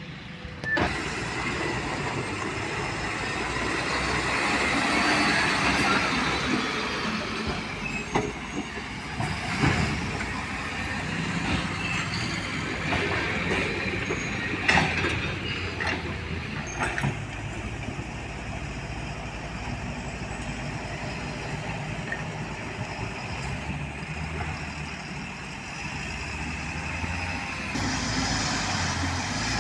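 Steady vehicle noise, with a few sharp knocks or clacks now and then.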